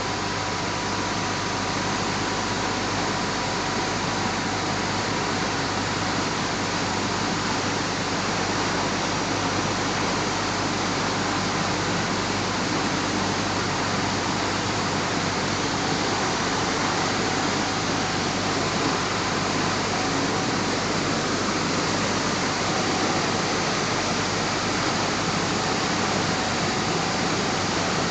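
Backwash water gushing in a heavy jet out of an opened turbine condenser water box and spattering against a wooden plank: a steady rushing that does not let up.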